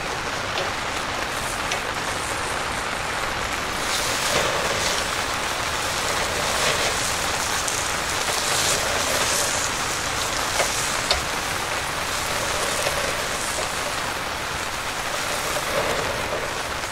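Heavy rain falling steadily, mixed with meat sizzling on a charcoal grill. There are two light taps about eleven seconds in.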